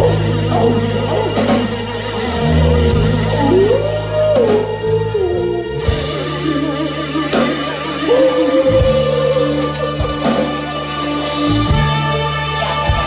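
Live rock band playing an instrumental passage: sustained bass notes changing every second or two under keyboards, a lead line that slides up and down in pitch, and drums with steady cymbal strikes.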